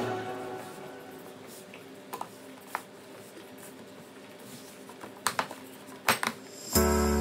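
Hands kneading bread dough in a stainless steel pot: a few scattered light clicks and taps against the metal, faint between them. Background music fades out at the start and comes back in near the end.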